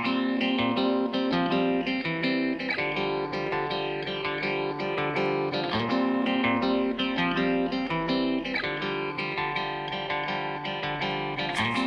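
Background music led by plucked guitar, with a steady run of notes and chords that starts abruptly at the beginning.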